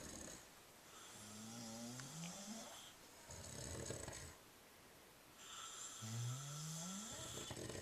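Two people, a man and a woman, snoring together. Twice a drawn-out snore climbs steadily in pitch, with a rougher, hissy snoring breath between them about four seconds in.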